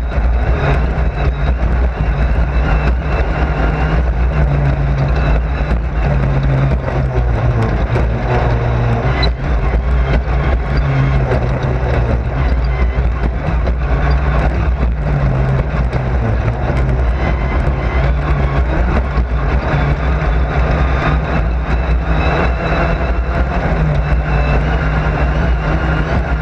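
Race car engine running hard, heard from inside the car: loud and continuous, its note shifting up and down every few seconds with road and wind noise over it.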